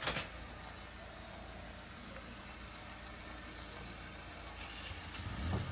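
Compact sedan's engine idling faintly, a steady low hum that grows a little louder near the end, with a sharp knock right at the start.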